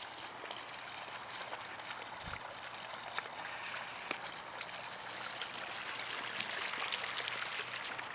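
Stone column bubbler fountain running steadily: water wells out of the top, trickles down the stone faces and splashes onto a bed of pebbles.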